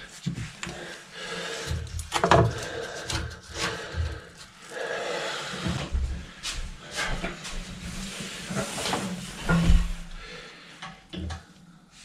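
Irregular clatter of knocks, clicks and rustling as tools are handled, including pliers, quieter in the last couple of seconds.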